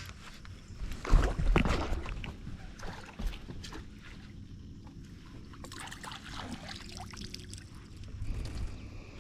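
Water and gear sounds in a fishing boat: a loud bump with a rush of noise about a second in, then low, steady water noise with small clicks.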